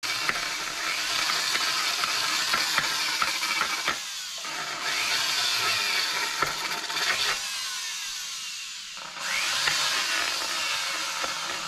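Flex-shaft rotary grinder porting the aluminium upper crankcase of a Yamaha Banshee engine: a high grinding whine whose pitch slides up and down as the bit bites into the metal. It eases off briefly about four seconds in and runs quieter from about seven to nine seconds in.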